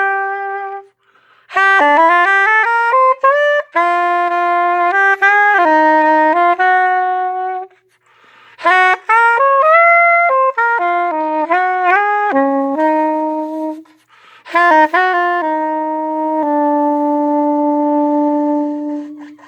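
Selmer Series II soprano saxophone played solo through a Missing Link mouthpiece with a .066 tip and a number 3 reed: several flowing phrases with short breath pauses between them, ending on a long held note.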